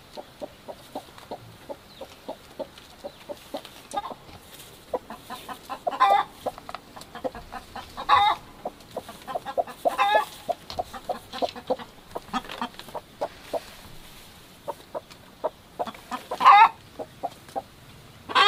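Hens clucking in quick short notes, broken every few seconds by a louder, drawn-out squawk, the loudest near the end.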